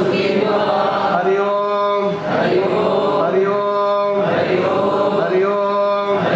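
A group of voices chanting a prayer together in unison, in long held notes of about a second and a half each over a steady low drone, with a brief break about two seconds in.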